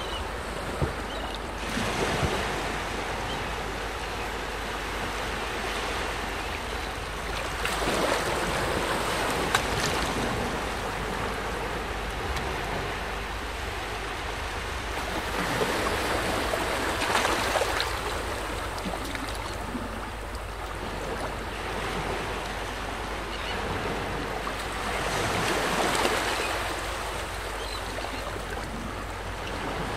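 Gentle waves washing ashore, a steady wash that swells and fades every several seconds, with light clicks as the water runs in.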